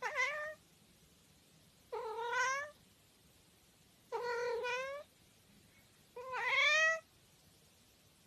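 A cat meowing four times, each drawn-out meow lasting under a second and coming about two seconds apart. The last meow is the loudest.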